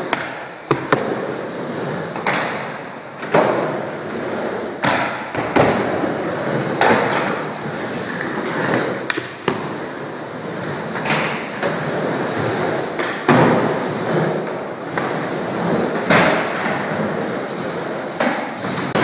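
Skateboard wheels rolling over wooden skatepark ramps, close by, with repeated clacks and thuds of boards landing and hitting the ramp surface every second or two.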